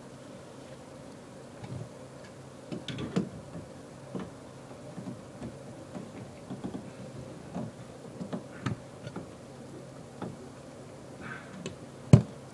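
Irregular clicks, taps and knocks of hand tools working on pipes inside an opened wall, with one sharp knock near the end. A steady low hum runs underneath.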